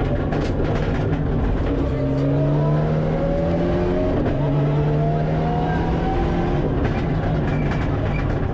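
Mitsubishi Lancer Evolution IX rally car's turbocharged four-cylinder engine at full throttle, heard from inside the cabin over loud road noise. The engine note climbs, dips briefly about four seconds in, then climbs again as the car accelerates.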